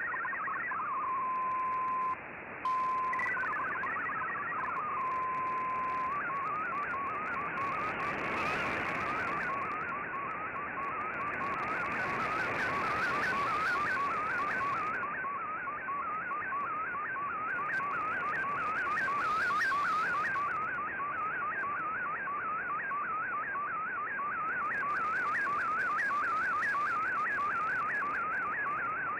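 Shortwave digital-mode broadcast received in AM: an Fldigi MFSK picture transmission. After a short warble and two steady beeps, a fast warbling tone sweeps rapidly up and down over a narrow pitch range while the image is sent. Steady static hiss lies under it.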